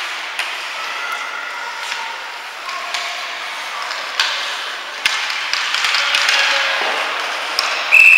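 Ice hockey rink during play: sharp clacks of sticks and puck over a hall full of shouting voices, which swell from about five seconds in. Near the end a referee's whistle sounds one loud, steady blast.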